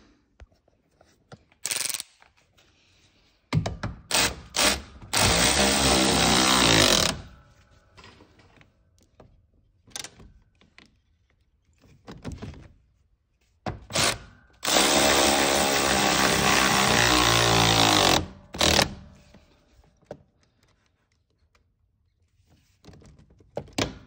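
Cordless ratchet spinning fasteners in during reassembly of a truck's shifter area: several short bursts, then two longer steady runs of about two to three seconds each, with a few clunks and quiet gaps between.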